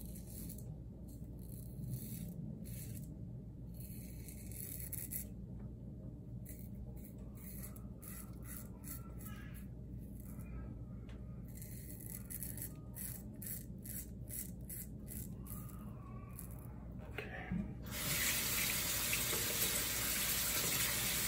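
Above the Tie Atlas H2 safety razor scraping through a long beard's growth in a run of short strokes. About three seconds before the end, a tap starts running steadily at the sink.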